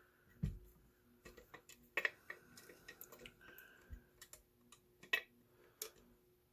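A small vise being handled and adjusted: scattered clicks and knocks of metal parts, with a dull thump about half a second in and sharper clicks later on.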